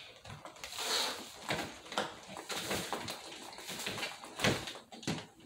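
A backpack being fetched and handled out of sight: irregular knocks, bumps and rustling.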